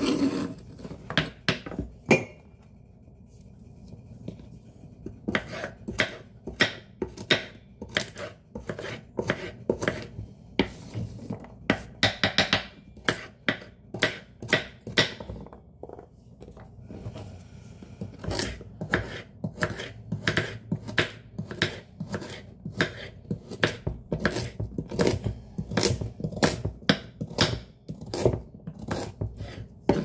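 Chef's knife slicing carrots on a wooden cutting board, the blade knocking the board in a steady rhythm of about two to three strikes a second, after a short pause near the start.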